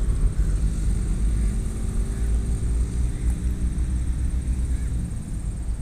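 Wind rumbling on an outdoor microphone, with a faint steady hum under it.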